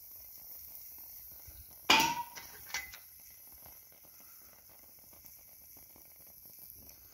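A single sharp knock about two seconds in, leaving a brief ringing tone, then two fainter clicks over low background noise.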